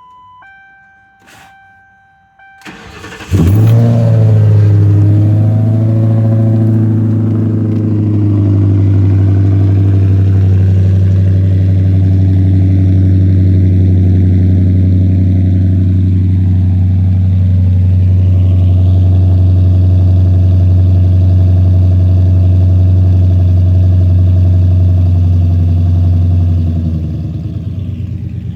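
Cold start of a Ford Crown Victoria's V8: a couple of short dash chime tones, a brief crank about three seconds in, then the engine catches with a flare in revs and settles into a steady fast idle, which drops lower near the end. A tame cold start.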